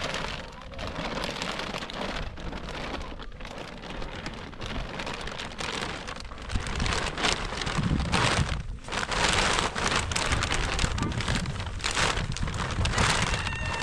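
Rain falling steadily, a dense hiss packed with drop hits, with a low rumble about eight seconds in.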